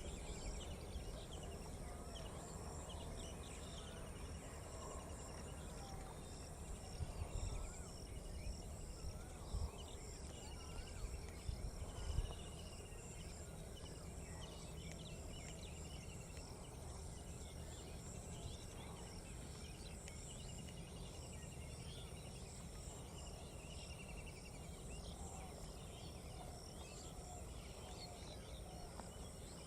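Outdoor pond ambience: a steady high-pitched chirring of insects with scattered short bird chirps, and a few low thumps of wind or handling noise in the first half.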